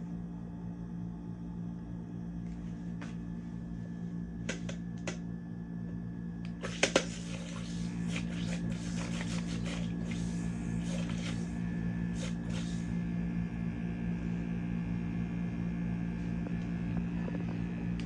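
Electric makeup brush cleaner spinning a brush in its glass bowl: the small motor hums steadily throughout. From about seven seconds in, for several seconds, there is a rush of spattering, crackling noise as the wet bristles fling water against the bowl while the brush is spun dry.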